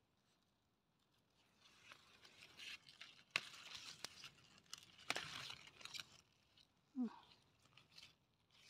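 Broccoli side shoots being snapped off the plant by hand: faint rustling of the leaves, with two sharp snaps of the stems, the first about three and a half seconds in and the second about five seconds in.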